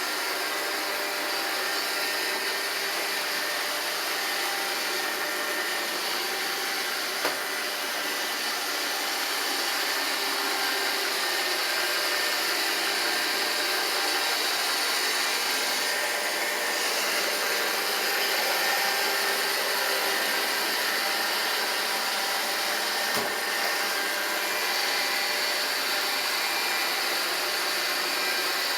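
Roomba 780 robot vacuum running: a steady motor whine and brush hum, with two short knocks, one about a quarter of the way in and one about three quarters of the way in.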